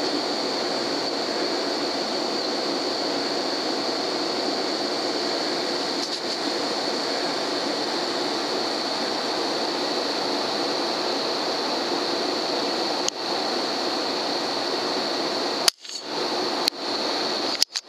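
Steady hiss with an even, high-pitched whine, broken by a single faint click about thirteen seconds in and cut off briefly twice near the end.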